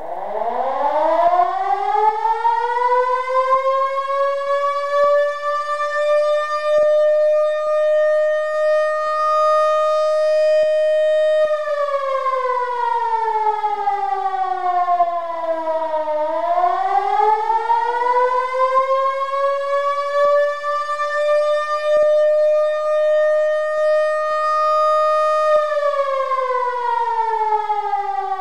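Lion King LK-JDW 245 electric motor siren (750 W, rated tone 530–580 Hz) winding up from a low growl to a steady, loud wail, holding it, then winding down as the motor coasts. About halfway it is restarted from partway down, climbs back to the same steady pitch, holds, and winds down again near the end.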